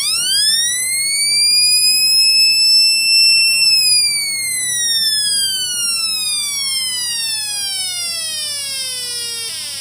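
Electronic fire-engine siren from a battery-powered siren circuit board and small loudspeaker. While its button is held the wail rises steeply in pitch and holds high for a moment. Once the button is released, about three and a half seconds in, it slowly slides down in pitch as it winds down.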